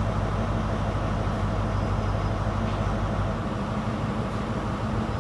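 Class 43 HST power car's MTU diesel engine idling steadily while the train stands at the platform, a low even drone.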